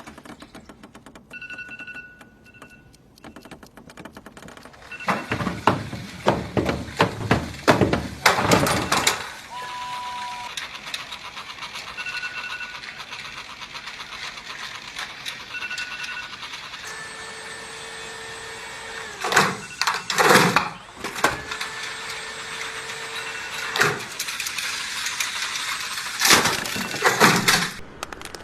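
Electronic alarm clock beeping in short two-note beeps that come back every few seconds. Between them come several bursts of loud clattering and banging knocks.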